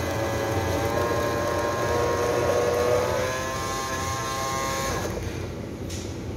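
Coffee vending machine dispensing coffee into a paper cup: a steady motor whine over a low hum, which stops about five seconds in as the pour ends.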